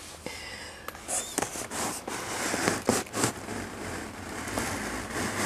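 Plastic blister packaging on a cardboard-backed mask gift set crinkling and crackling as it is handled and turned, with irregular sharp clicks.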